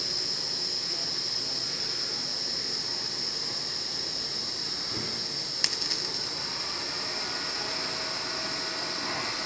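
TIG welding arc on steel socket extensions, a steady high-pitched hiss, with one sharp click about five and a half seconds in.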